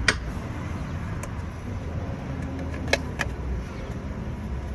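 A few sharp plastic clicks and knocks as the parts of a cordless car vacuum are handled and fitted back together, over a low steady rumble.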